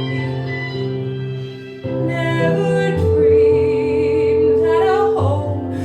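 A woman singing a slow ballad over an instrumental accompaniment. After a brief breath-like dip she holds a long, loud note with vibrato.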